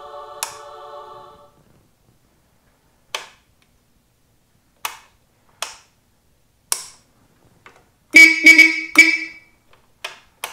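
Light switch in the headlamp shell of a 1955 AJS Model 18S clicking several times as it is worked, then the motorcycle's electric horn sounding in two short blasts, the loudest sound. The switch now works, a loose, corroded connection beneath it having been scraped clean.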